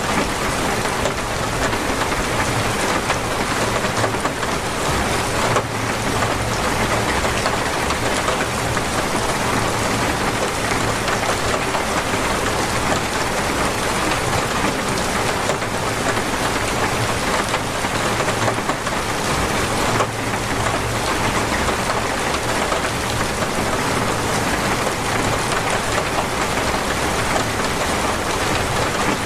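Torrential rain pouring down steadily, a dense, even hiss of drops on surfaces.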